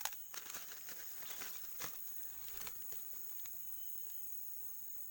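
Forest insects keeping up a steady high-pitched drone, with scattered rustling and clicks in the first two seconds.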